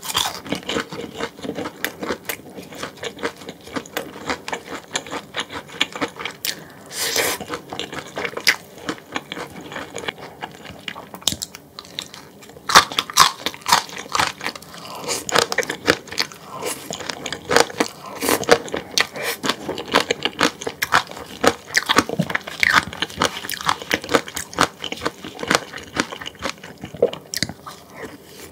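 A person eating close to the microphone: repeated biting, crunching and chewing of food.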